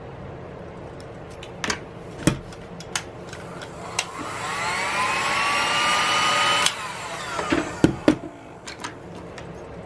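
Handheld heat gun switched on, its fan motor whining up in pitch over the rush of blown air for about three seconds, then cut off abruptly. A few sharp knocks follow as it is set down on the bench.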